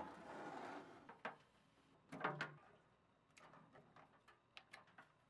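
Near silence, broken by a few faint clicks and light knocks from handling a sheet-metal equipment cabinet and its wiring connectors, with a soft hiss in the first second.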